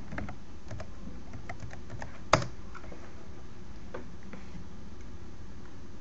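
Computer keyboard being typed on, a quick run of light key clicks, then one sharp, much louder click about two and a half seconds in, followed by a few scattered clicks. A steady low background runs underneath.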